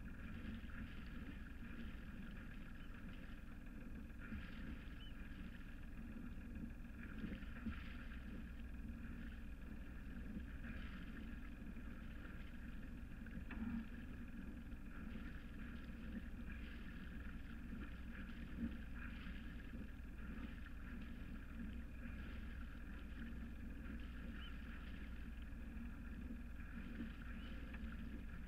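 Sailing yacht's inboard engine running steadily as the boat motors along, with a couple of short knocks around the middle.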